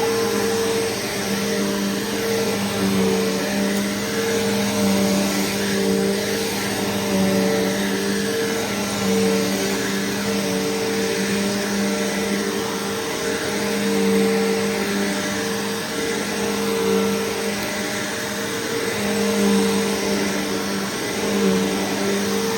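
Bissell Powerforce Bagged upright vacuum cleaner running steadily with a motor hum and airflow hiss, its loudness swelling and easing every few seconds as it is pushed back and forth.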